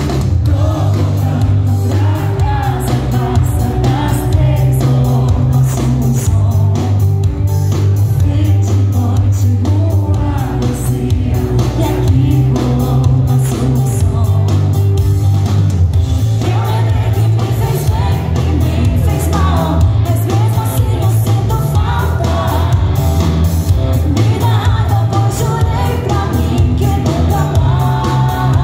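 Live pop band of drums, bass and electric guitar playing under a woman's amplified lead vocal, with a heavy bass line and a steady drum beat.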